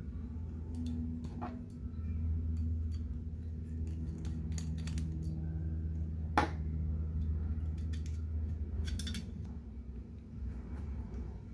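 Scattered clicks and taps of a Colt 1911 CO2 BB pistol's frame and small parts being handled and taken apart, with one sharper click a little past halfway. A steady low hum runs underneath.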